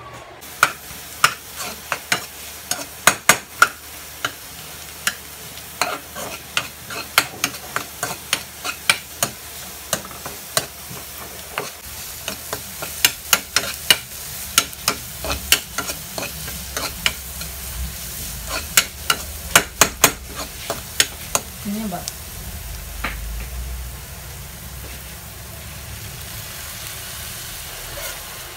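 Onion and garlic frying and sizzling in a pan while a spatula stirs them, with many sharp clicks of the spatula against the pan that thin out over the last several seconds.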